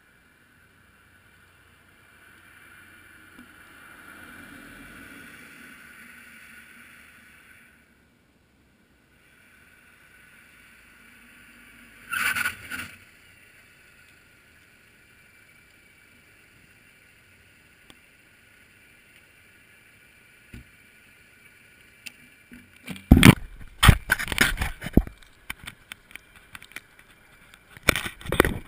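A GoPro action camera being knocked and rubbed as it is handled: loud, irregular clattering knocks and scrapes in the last few seconds. Earlier there is a faint whoosh that swells and fades, and one brief rustle.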